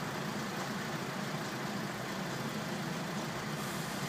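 Steady low hum of an idling car engine and surrounding stopped traffic, heard from inside the car's cabin.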